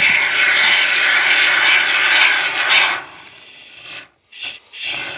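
Aerosol can of polyurethane assembly foam spraying through its straw nozzle: a steady hiss for about three seconds, then, after a short lull, two brief spurts.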